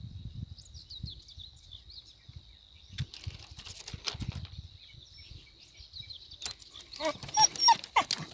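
A handful of short, whining animal calls near the end, over small bird chirps and low rustling.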